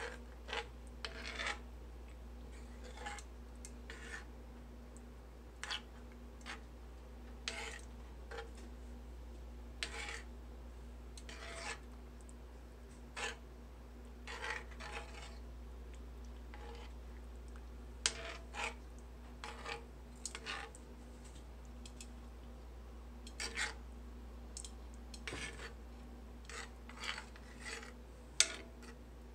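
Metal spoon scraping and clinking against a cast-iron skillet while stirring, in short irregular strokes, with a steady low hum underneath.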